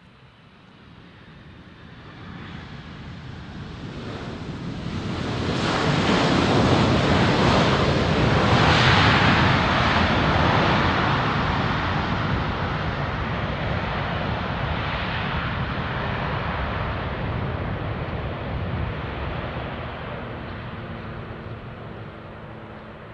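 Jet aircraft passing close by: the engine roar swells over the first several seconds, peaks about eight seconds in, then slowly fades away.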